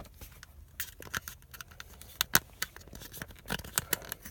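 Irregular sharp plastic clicks and scrapes of a power window switch being pried and worked out of its clip-in housing, catching on its retaining tabs. The loudest click comes a little past halfway.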